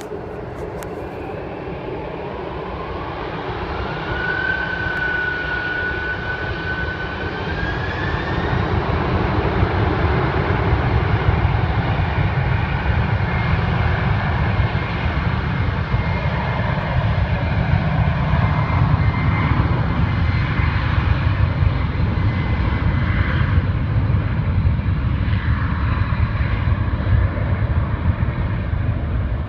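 Boeing 747-400's four jet engines spooling up to takeoff power, heard across the water. A whine climbs over the first few seconds, holds, then rises again about eight seconds in. Beneath it a low rumble grows louder and then stays steady as the jet rolls down the runway.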